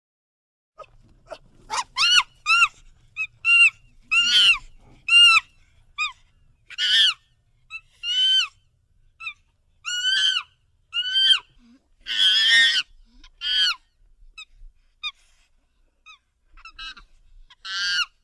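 Monkey giving a string of short, high-pitched calls, each rising then falling in pitch, coming in irregular bursts, with one longer, harsher call partway through.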